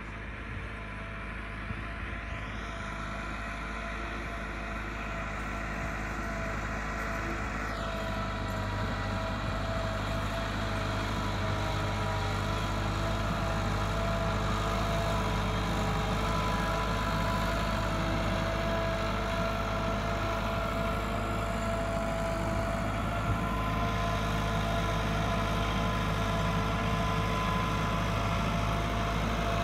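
Massey Ferguson 385 tractor's diesel engine running steadily under load as it pulls a laser land leveler through loose soil, growing louder over the first ten seconds or so as the tractor comes closer, then holding steady.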